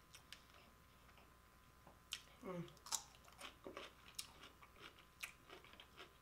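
Faint close-up chewing of a crisp cucumber spear: quiet at first, then from about two seconds in a run of sharp crunches and wet clicks, with a short hummed "mm" among them.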